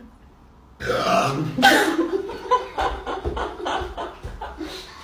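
A loud burp starting suddenly about a second in, brought up by chugging a bottle of Sprite, its loudest point just after. It is followed by a run of short choppy bursts of laughter.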